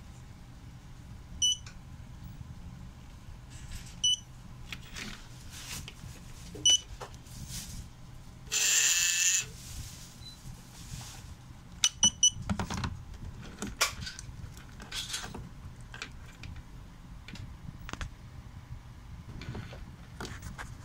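Happymodel Mobula7 micro quadcopter's motors spinning on the bench, with a short loud rev-up about nine seconds in. Short high electronic beeps sound several times, a double beep near twelve seconds.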